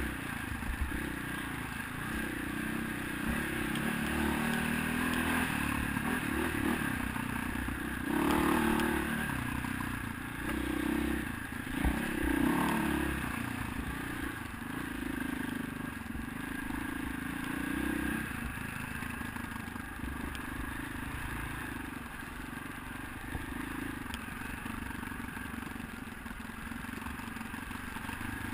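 Four-stroke single-cylinder dirt bike engine heard from on board, revving up and down as the throttle is worked along the trail, with louder surges about a third of the way in. It settles to a steadier, slightly quieter run for the last third, with clatter and rattle mixed in.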